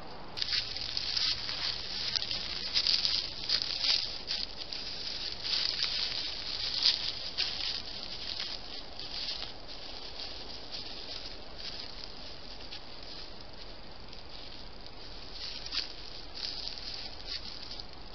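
Dry leaf litter rustling and crunching in irregular bursts as a deer walks and forages close to a trail camera, busiest in the first half and thinning later, over the camera microphone's steady hiss.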